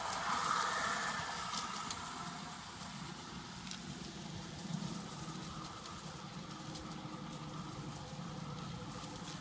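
OSET 16 electric trials bike running across grass and dry leaves: a faint, steady electric-motor whine under a crackling rustle of tyres and leaves.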